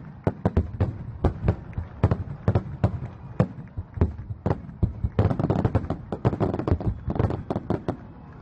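Fireworks going off: a quick, irregular run of sharp bangs, about three or four a second, thickening into a dense crackle about five seconds in before thinning out again near the end.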